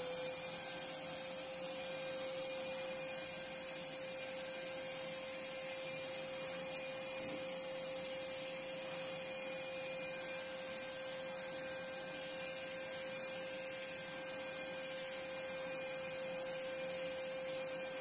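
WAP GTW10 1400-watt wet/dry vacuum cleaner running steadily at full speed: a constant whine over an even rush of air.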